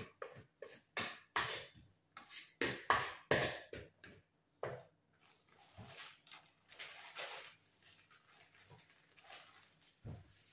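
Food being packed by hand: plastic bags rustling and crinkling, with light knocks of plastic containers and utensils on a table. The handling is busiest in the first few seconds, then turns to softer, quicker rustling.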